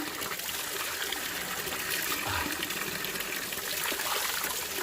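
Spring water running and splashing steadily from the rock outlet of a mountain spring.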